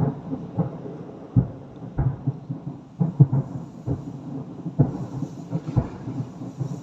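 Fireworks shells bursting overhead in an irregular series of booms, sometimes several close together, with a rumbling tail between the bangs.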